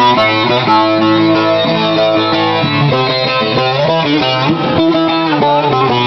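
Amplified bağlama (long-necked Turkish saz) playing a folk melody, with a steady run of notes and no pauses.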